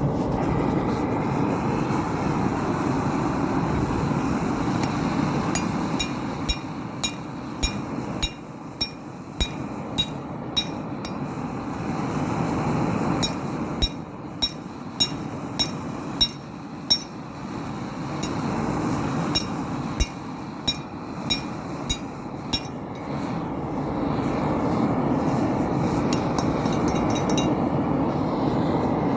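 A forge runs with a steady, loud noise throughout. Over its middle stretch, a hammer beats a hot railroad spike on the anvil, one or two ringing strikes a second with a short pause partway through.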